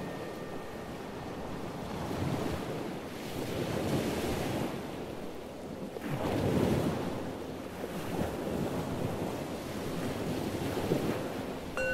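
Ocean surf: waves washing in and drawing back, the rushing noise swelling and ebbing in several surges.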